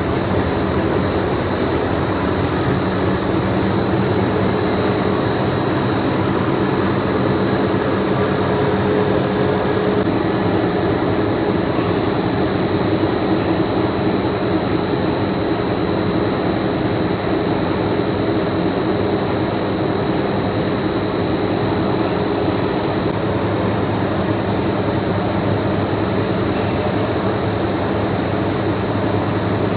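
Steady running noise of factory machinery on a plastic pipe production line: a constant hum with a thin high whine over it, unchanging throughout.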